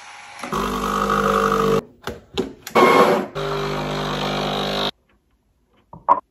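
Espresso machine's pump humming steadily while pulling shots into cups, with a couple of short breaks and a sudden stop about five seconds in.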